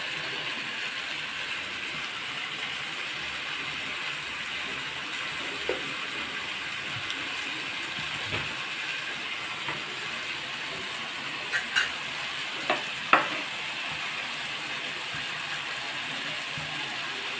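Partridge pieces in masala sizzling as they fry in an aluminium kadai, a steady hiss. A few short sharp knocks sound about two-thirds of the way through.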